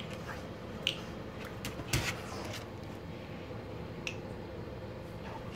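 A few sharp, scattered clicks over a quiet room, the loudest about two seconds in: a golden retriever's claws on a tile floor as it walks.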